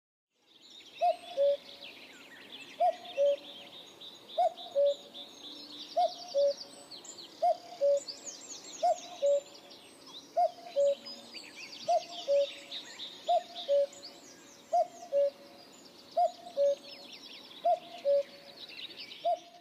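Birdsong: a bird gives a two-note call, the second note lower, about every one and a half seconds. Behind it is a chorus of many small birds chirping.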